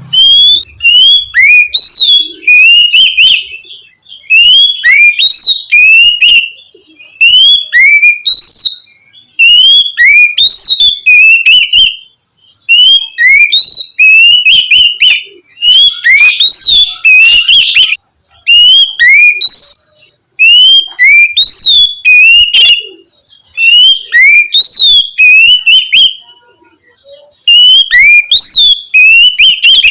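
Oriental magpie-robin (kacer) singing loud, clear whistled 'ngeplong' phrases: quick notes that swoop up and down, given in bursts of a second or two with short pauses between them.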